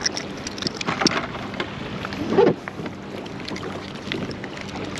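Water lapping and splashing against a small plastic fishing kayak, with scattered knocks and clicks from handling rod and line. The loudest of them comes about two and a half seconds in.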